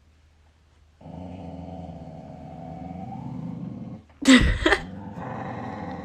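A dog growling low and steadily for about three seconds, then one loud bark about four seconds in, followed by more growling.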